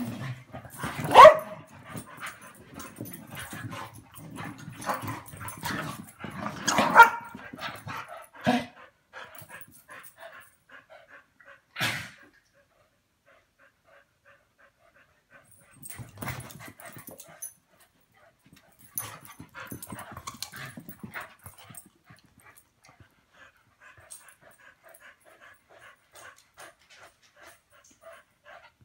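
Dogs barking: loud barks about a second in and again around seven seconds, then scattered, quieter ones that thin out toward the end.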